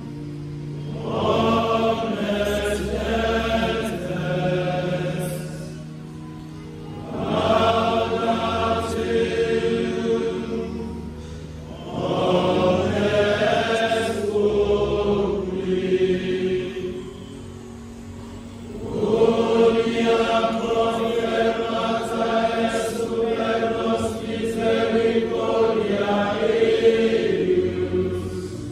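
A choir of young men singing a Benediction hymn together, in four long phrases with short pauses between them.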